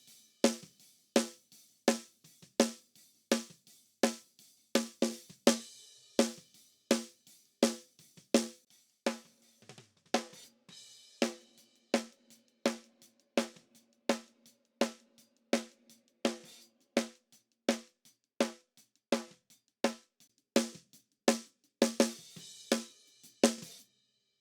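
Recorded snare track of a tightly tuned Ludwig Acrolite 14x5 snare drum played back: single hits about one and a half a second, each with a short pitched ring. The sound is EQ'd on a console with a boost around 200 Hz, a cut at 700 Hz and plenty of added treble. A cymbal wash from the kit bleeds in near the end.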